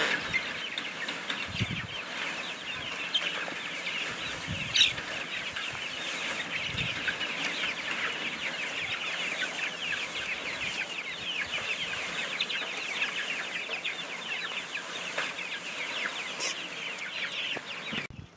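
A flock of about sixty young chickens peeping constantly, many short falling chirps overlapping, with a few low bumps underneath. It cuts off abruptly just before the end.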